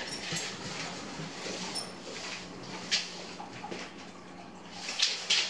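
Scattered short rustles and scrapes of handling and writing on plastic sheeting over a countertop, over a faint steady low hum.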